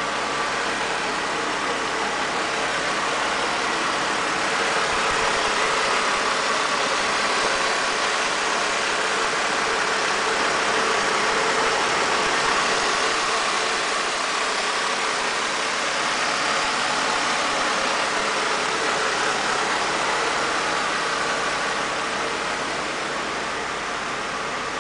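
1994 Mercedes-Benz wagon's engine idling steadily and smoothly.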